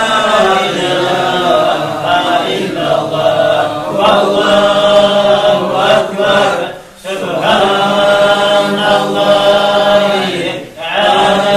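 Male chanting of Arabic dhikr between tarawih prayer rounds, a long drawn-out melodic line broken by pauses for breath about 7 and 11 seconds in.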